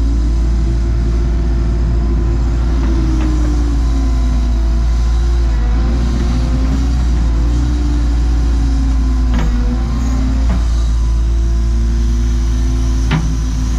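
Cat 314E excavator's diesel engine running steadily under load, with a whine from the hydraulics that rises and falls as the boom and arm move. A few sharp knocks come through, mostly in the second half, as the bucket and thumb handle the boulders.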